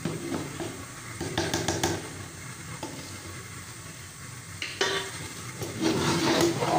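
Metal spoon stirring thick haleem in a steel pot, scraping the bottom and sides with a few clinks against the metal. The stirring gets louder near the end.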